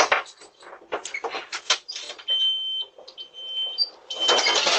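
A series of clicks and knocks, then a high electronic beep sounding three times, each about half a second long, then a loud rush of noise near the end.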